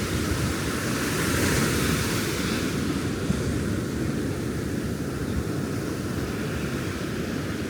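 Ocean surf breaking and washing up the beach, with wind rumbling on the microphone; a wave rushes in about a second in.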